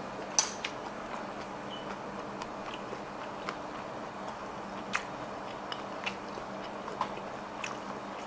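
A man chewing a mouthful of freshly fried fish cake with a crisp coating, picked up close by a clip-on microphone. Scattered small crunches and mouth clicks come through, the loudest shortly after the start.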